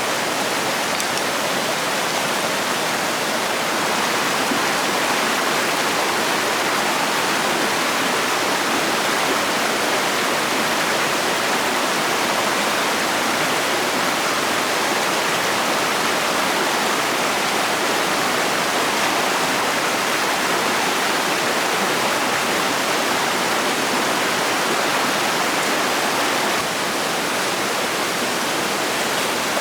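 Steady rushing noise like flowing water, with no breaks, a little quieter near the end.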